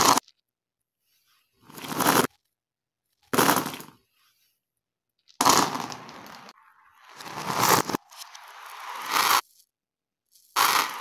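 Plastic dice, marbles and beads clattering and scattering on a hard floor, played in reverse: about six separate bursts of rattling, several of which swell up and then cut off abruptly.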